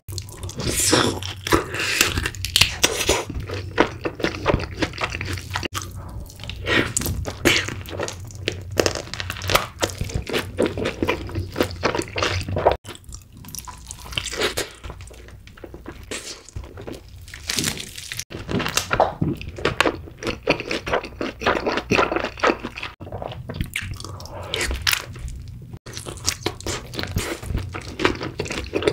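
Close-miked eating of fried chicken drumsticks in sauce and cheese sauce: crunchy bites into the crust and wet, sticky chewing, in irregular clusters. The sound breaks off abruptly a few times where stretches are cut together.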